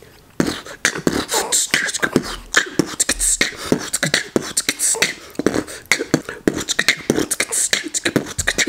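A man beatboxing close to the microphone: a rapid, continuous run of mouth-made percussive clicks, pops and hissing hi-hat sounds.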